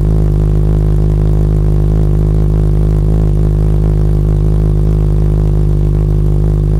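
Yamaha XJ6's inline-four engine idling steadily through an aftermarket Firetong Willy Made exhaust, a deep, even drone picked up close to the bike.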